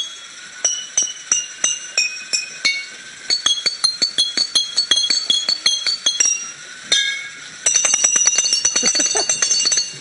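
Glass bottles and water glasses struck one after another by a striker on a passing toy train, each clinking and ringing at its own pitch. About eight seconds in, the strikes come in a fast, dense run.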